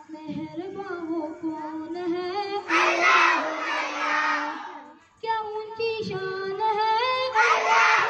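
A boy singing a devotional hymn in praise of Allah into a microphone, in long held notes that glide and waver in pitch. Twice a louder, fuller and hissier passage swells in, about three seconds in and again near the end.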